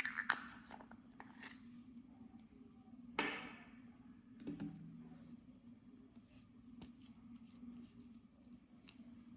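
A few short, sharp clicks and scrapes from makeup and slime materials being handled and cut, the loudest right at the start, over a steady low hum.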